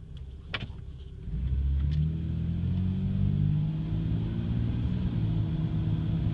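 2004 Toyota Tacoma's 3.4-litre V6 with automatic transmission pulling away from a stop. There is a sharp click about half a second in, and the engine note comes up about a second in, rising briefly before settling into a steady run. This is a test pull-away for a grinding noise the owner hears whenever he drives the truck.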